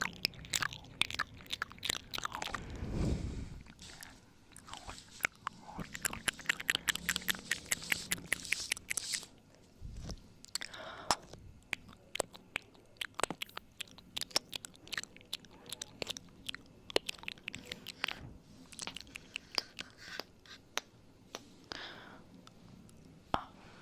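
ASMR ear-eating mouth sounds: wet clicks, smacks and nibbling close to the microphone, coming thick and fast for a few seconds near the start, then sparser.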